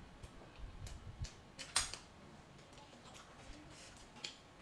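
Quiet eating at the table: chewing with a few scattered light clicks and taps of chopsticks on tableware, the loudest a little under two seconds in.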